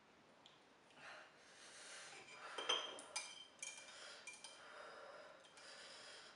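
Chopsticks clicking against a ceramic noodle bowl, several short ringing clinks in the middle, with breathing through the mouth in between.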